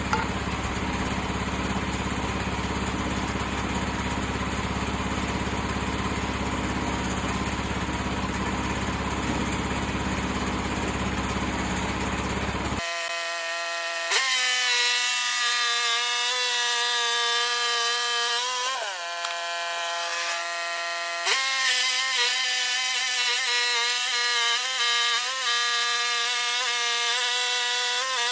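Engine-driven sawmill running and sawing through a white oak log. A dense, rough noise changes abruptly about thirteen seconds in to a steady, higher-pitched machine tone, which dips briefly in pitch and then recovers.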